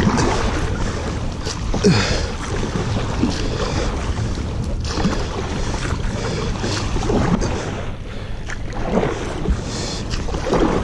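Kayak paddle strokes splashing in shallow, flowing river water, a stroke every second or two, over a steady rush of moving water.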